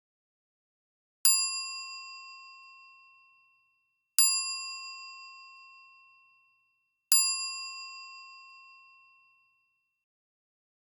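A bell dings three times, about three seconds apart, each strike ringing out and fading away: the signal that the countdown time is up.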